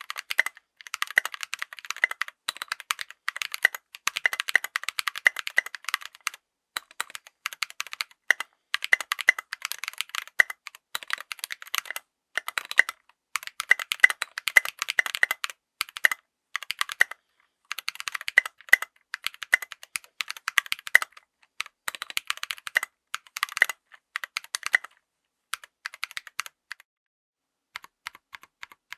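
Mechanical keyboard with stock, unlubed Drop + Invyr Holy Panda tactile switches being typed on in quick runs of keystrokes with short pauses between them, giving a deep, tactile thock on each key.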